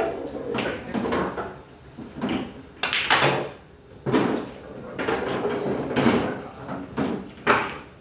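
Knocks and clacks of play on a coin-op pool table: cue strikes and balls hitting one another and the cushions, about nine sharp hits, the loudest about three seconds in and near the end.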